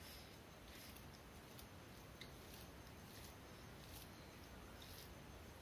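Near silence with faint, irregular soft clicks of eating rice and curry by hand from a steel plate.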